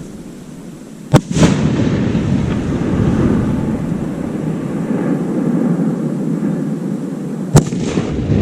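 Aerial firework shells bursting: two sharp bangs about six seconds apart, each followed closely by a second, smaller crack, over a continuous low rumble.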